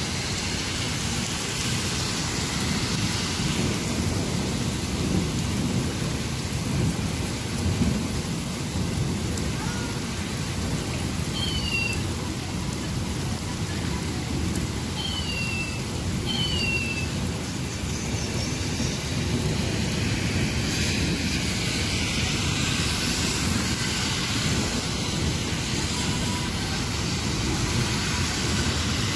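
Heavy rain pouring steadily, with a constant low rumble under it. A few short, high, falling chirps sound near the middle.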